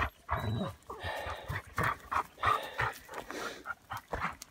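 Large dogs moving close around on a dry, leaf-littered dirt trail: a dog panting, with footsteps crunching and rustling in dry leaves.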